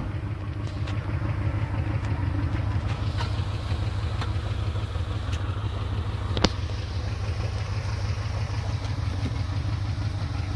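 Rear-mounted air-cooled V4 of a ZAZ-968M Zaporozhets idling steadily, with a single sharp click about two-thirds of the way through.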